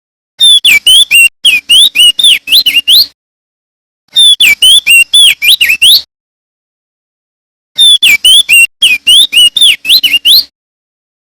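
Male opior jambul (crested darkeye) singing loudly: three quick phrases of rapid whistled notes that sweep up and down. Each phrase lasts two to three seconds, with short silent gaps between them.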